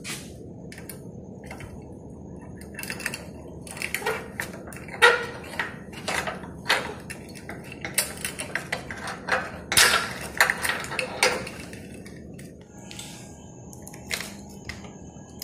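Metallic clinks and rattles of a padlock being unlocked with a key on a steel bar gate, a run of sharp clicks that dies away a few seconds before the end.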